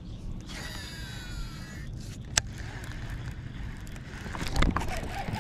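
Baitcasting reel spool whirring out during a cast, its pitch falling as the spool slows, followed by a single sharp click about two and a half seconds in, over a steady low rumble.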